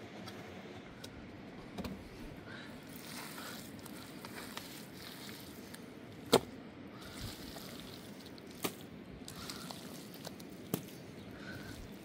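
Wet mud-and-straw plaster being scooped and pressed by hand, soft wet handling sounds with scattered sharp clicks and knocks; the loudest is a single knock about six seconds in.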